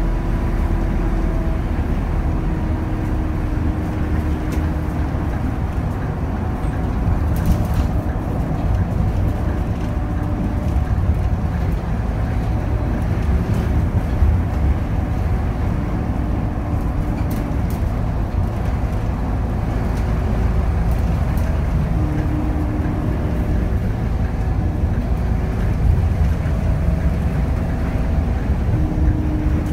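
Scania K280 city bus under way, heard from the driver's dashboard: a steady diesel engine drone with road and tyre noise. A higher whining tone comes and goes every few seconds.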